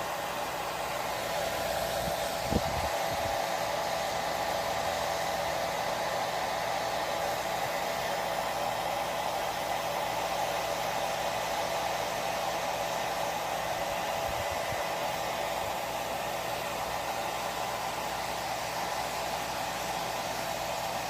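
Hair dryer blowing steadily, with one brief knock about two and a half seconds in.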